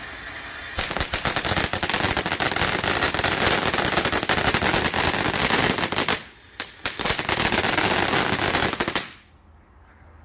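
Phantom Fireworks Green Glittering Flower single-tube fountain burning: a loud, steady hissing spray packed with rapid glitter crackling. It thins out briefly to a few pops about six seconds in, picks up again, and cuts off about nine seconds in as the fountain burns out.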